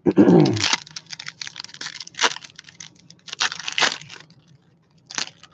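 Trading-card pack wrappers being torn open and crinkled, in several short scratchy bursts. A brief voice sound comes right at the start.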